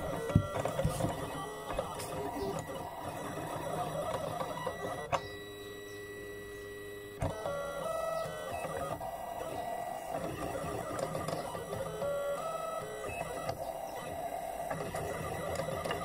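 Cuyi mini cutting plotter running, its motors whirring in pitches that step up and down as the blade carriage and sheet rollers move to cut printed stickers. There are a few sharp clicks in the first second, and a quieter pause of about two seconds near the middle.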